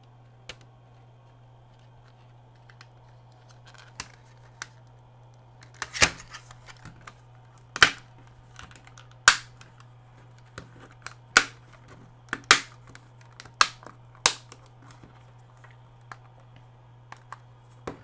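Plastic snap clips of a Dish Network 21.0 IR/UHF Pro remote control's case clicking into place as the two halves are pressed together: a string of sharp clicks starting about six seconds in, about seven loud ones with smaller clicks between.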